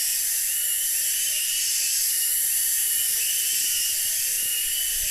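Cicadas buzzing in a steady, shrill high drone, with a short rising-and-falling chirp repeating about twice a second.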